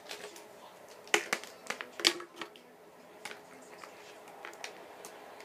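Plastic Sharpie markers clicking and clacking against each other and a clear plastic pencil box as they are stacked in by hand: a few sharp clicks, the loudest about two seconds in, then fainter scattered taps.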